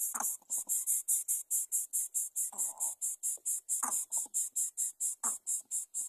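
Insect chirping in a fast, even, high-pitched pulse, about five or six chirps a second. Four short, lower sounds that drop in pitch break in at intervals.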